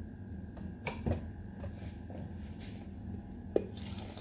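Milk poured from a glass into a small blender cup: a short splashing pour near the end, just after a sharp knock of glass against the cup. Before it come a few light clicks of the cup and glass being handled, over a steady faint hum.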